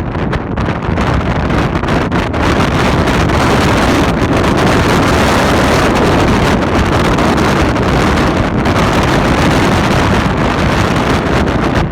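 Strong wind rushing over the microphone: a loud, steady roar of wind noise that swells slightly after the first couple of seconds.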